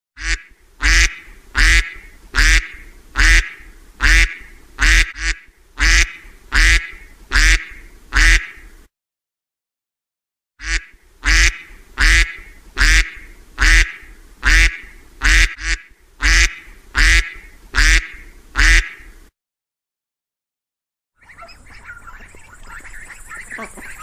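A duck quacking over and over in a regular rhythm, about one quack every three-quarters of a second. The quacks come in two long runs with a short silence between them. Near the end the quacking stops and gives way to faint background noise.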